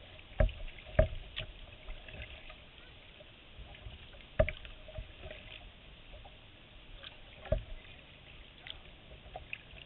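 Kayak paddling on calm water: a faint steady wash broken by about four hollow knocks on the kayak's hull. Two come close together right at the start, one in the middle and one later on.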